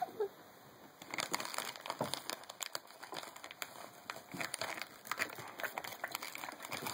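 Plastic cough-drop packaging crinkling as it is handled, in irregular crackles starting about a second in.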